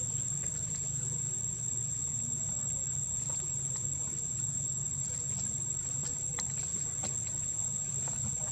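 Insects droning in a steady high-pitched whine over a low steady hum, with a few faint scattered ticks.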